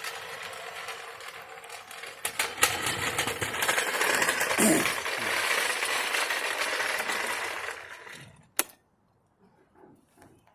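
Stihl MS 391 two-stroke chainsaw running, then revved up about two seconds in and cutting through a pine block at full throttle for several seconds. Near the end the saw sound dies away, followed by a single sharp click.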